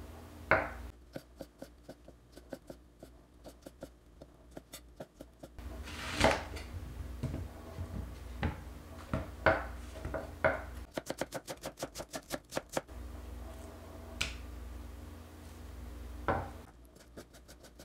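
Kitchen knife chopping ingredients on a cutting board: quick runs of fast, even cuts, several a second, with slower single knocks of the blade between them.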